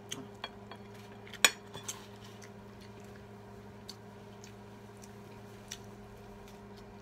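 Metal spoons and forks clinking against ceramic plates while people eat, a few scattered clinks with the loudest about a second and a half in, over a steady low hum.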